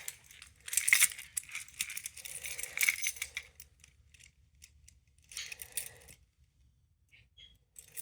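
A ring of keys jangling, with metallic clicks, as a key is used to reset a fire alarm pull station. A first run of jingling lasts about three seconds, and a shorter one follows about halfway through.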